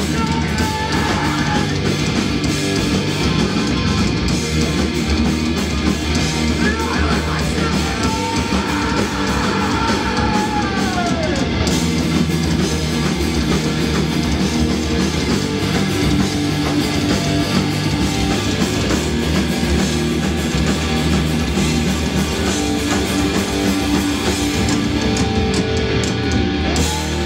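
A post-hardcore band playing live and loud: distorted electric guitars, bass and drums filling a club, with a few sliding guitar notes rising and falling in pitch near the start and again about a third of the way in.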